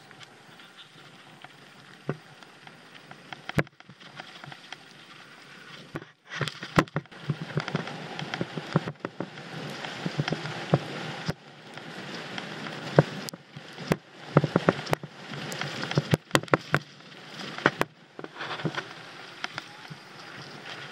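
Mountain bike riding down a dry dirt trail, heard from a helmet camera: tyres crunching over dirt and gravel, with frequent sharp knocks and rattles from the bike over bumps. It gets louder and rougher about six seconds in.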